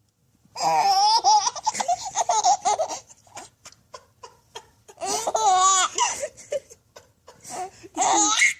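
A baby laughing in three bouts: a long peal of high laughter starting about half a second in, another about five seconds in, and a short one near the end.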